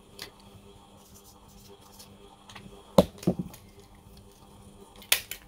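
Faint rustling from fabric being handled, with a sharp knock about three seconds in, a smaller one just after, and two quick clicks near the end.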